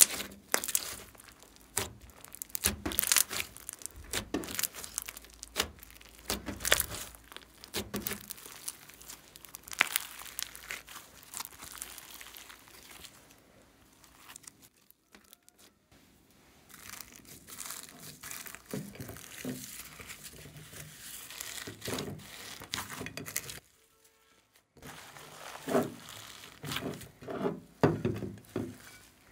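Hands squeezing and kneading a fluffy slime packed with foam beads: an irregular run of sticky crackles and pops. After a brief silence near the end, another slime in a glass dish is handled with similar squelching pops.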